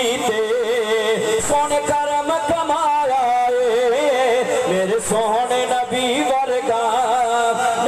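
A solo male voice sings a naat into a handheld microphone, holding long notes that waver up and down with short breaks between phrases.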